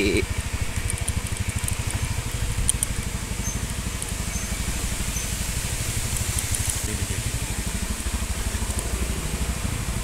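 Small motor scooter engine running steadily while riding, with an even low pulsing rumble.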